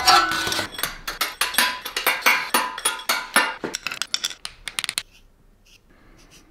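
Long steel M8 bolts clinking against each other and against a stainless steel tray as they are gathered up by hand: a quick, irregular run of metallic clinks and rattles that stops about five seconds in.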